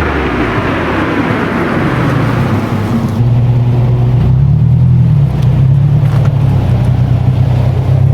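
Subaru WRX's turbocharged 2.4-litre flat-four running through a JDMuscle sport resonator midpipe: a steady low exhaust drone. A rushing noise lies over it for the first three seconds, then drops away as the drone gets louder.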